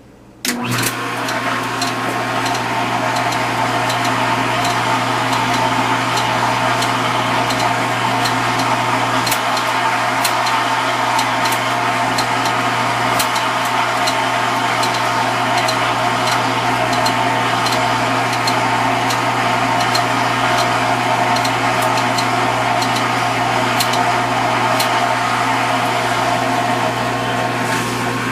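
Vintage KitchenAid KDS-18 Supurba dishwasher switching on about half a second in and running steadily: a low hum under a loud rushing noise, with scattered sharp clicks.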